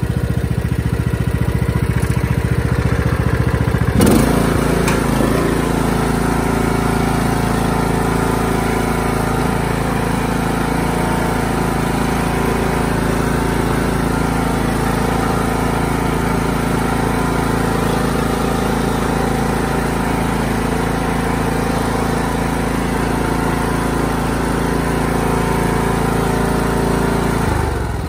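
Craftsman T110 riding mower's engine running steadily at full throttle, with a sudden louder moment about four seconds in after which the engine note shifts. Near the end the sound drops as the throttle is pulled back.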